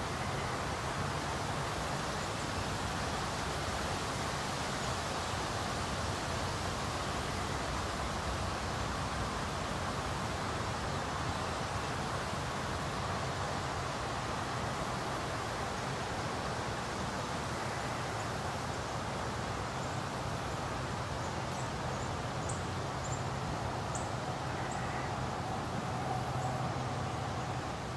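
Steady outdoor background noise: an even hiss over a low hum, with a few faint high chirps in the last third.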